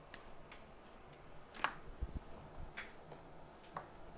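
A few faint, irregular clicks and taps of small hand tools being handled at a microsoldering bench, the sharpest about one and a half seconds in, with a dull low thump soon after.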